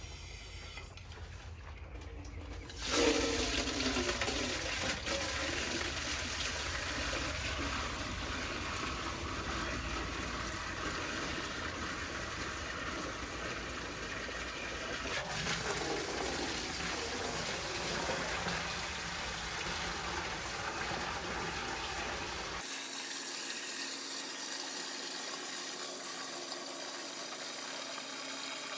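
Water running steadily and splashing, as from a tap or hose filling a container, starting suddenly about three seconds in.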